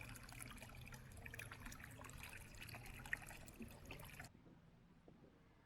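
Faint trickling water with small scattered ticks, cutting off abruptly about four seconds in.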